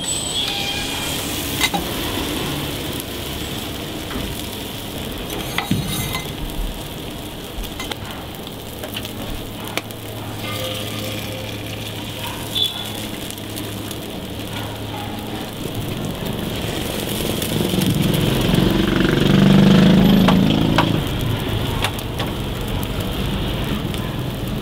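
Burger patties and eggs sizzling on a flat-top steel griddle: a steady frying hiss with occasional light clicks and taps. A louder low rumble builds and fades about three-quarters of the way through.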